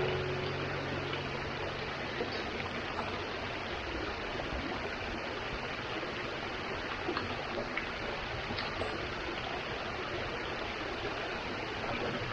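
Steady rushing of running water, like a stream, with a few faint ticks; the last chord of a piece of music fades out in the first second.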